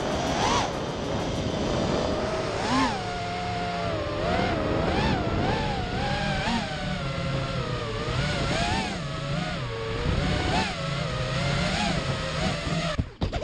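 Brushless motors and 5-inch propellers of an FPV racing quadcopter (Lumenier 2206 2350 kV motors on 4S), heard from its onboard camera, whining with a pitch that rises and falls constantly with the throttle, over a rush of air. The sound cuts off abruptly near the end.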